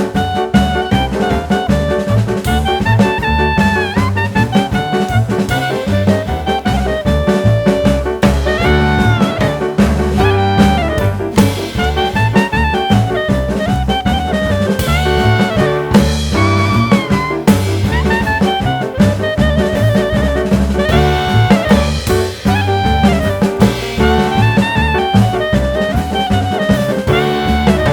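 Upbeat jazz background music: saxophone or brass melody over a walking bass and drum kit with a steady swing beat.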